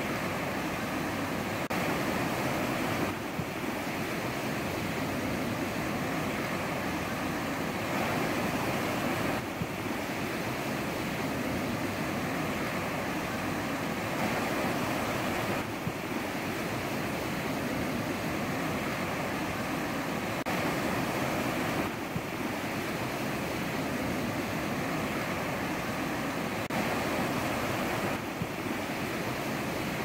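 Ocean surf washing onto a shore: a continuous rushing hiss of breaking waves, rising and easing a little every few seconds.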